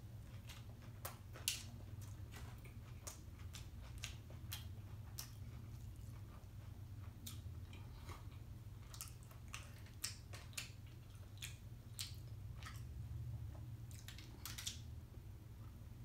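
A person chewing mouthfuls of a cheeseburger close to the microphone: irregular wet mouth clicks and smacks, sometimes several a second.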